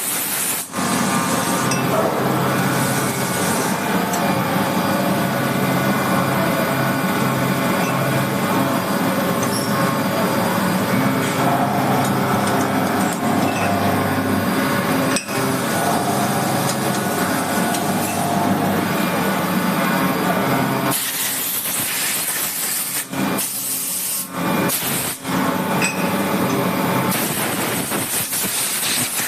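A CNC milling machine at work: a steady, layered machine whine over a hiss. In the last third the whine drops away and a hiss comes and goes, broken by several sudden cuts.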